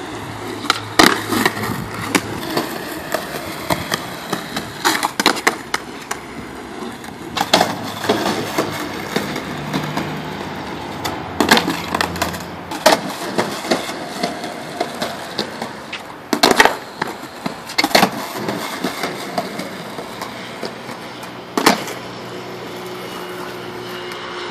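Skateboard wheels rolling on asphalt, broken by a series of sharp clacks as the wooden deck and tail pop and slap down onto the pavement during flatground trick attempts.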